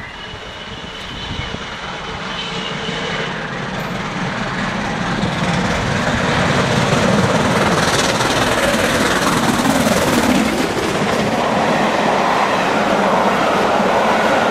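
LMS Stanier Class 5MT 'Black Five' 4-6-0 steam locomotive 45305 approaching with its train and passing, growing steadily louder as it draws near, followed by its coaches rolling past with the clickety-clack of wheels on the rails.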